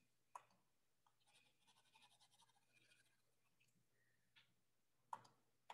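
Near silence, with a few faint clicks and a soft scratching for a couple of seconds in the first half.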